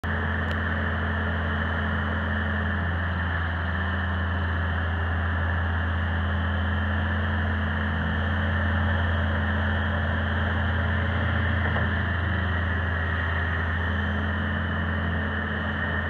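Kubota 3.3-litre diesel engine of a 2017 Bobcat T595 tracked skid steer running steadily with a deep hum, as the machine moves on its tracks and raises its loader arms.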